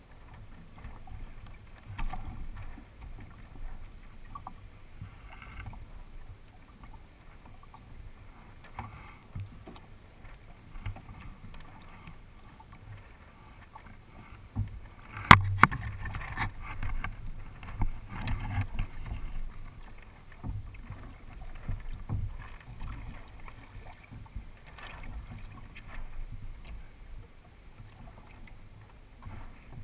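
Water lapping and splashing against the hulls of a Hobie Adventure Island sailing kayak moving slowly. About halfway through there is one sharp knock, followed by a few seconds of louder splashing.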